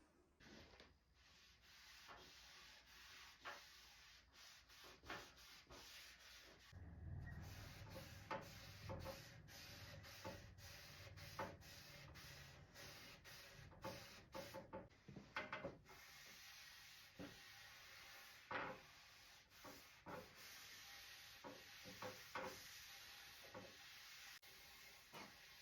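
Wood being rubbed or sanded by hand: a steady scratchy hiss broken by many light knocks and clicks. A low hum sits underneath for several seconds in the middle.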